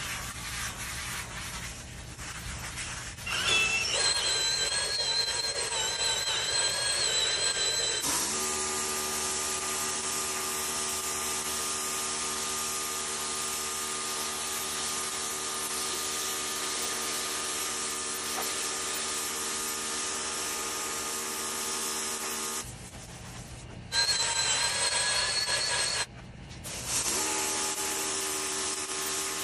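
Pressure washer spraying a foam-covered rubber car floor mat: a steady hiss of the water jet over the machine's humming motor. At times a high whistling tone rides on top, and the sound breaks off briefly twice.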